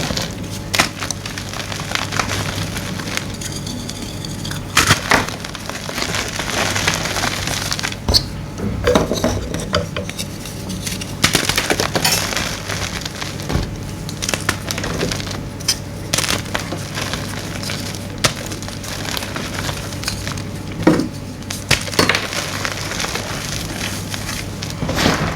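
Blocks of gym chalk being crushed and crumbled: a continuous run of dry crunches and crackles, with sharper snaps at irregular intervals every second or two.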